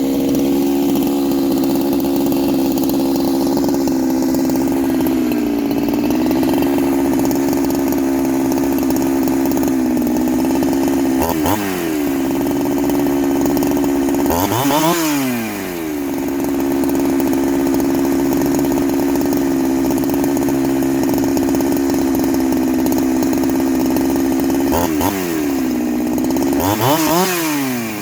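Farmertec G372XT two-stroke chainsaw engine running steadily at high revs. Its pitch falls sharply and climbs back to full revs about four times, in the second half.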